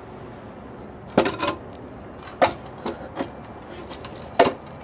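A rusty iron machine-gun mount being handled: a handful of irregular sharp metal knocks and clinks with some scraping, the loudest near the end.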